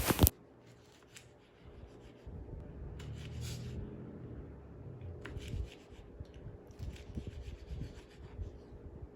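Kitchen knife cutting a tomato on a cutting board: soft scraping as the blade slices through, with scattered light taps of the blade against the board.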